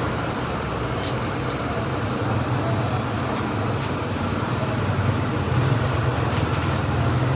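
Steady low rumble of street traffic, swelling a little after about five seconds, with a few faint ticks.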